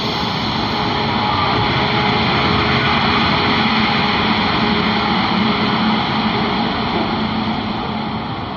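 Passenger train moving off from a platform: the steady rushing rumble of the coaches gathering speed, with wind buffeting the microphone held at the side of the coach.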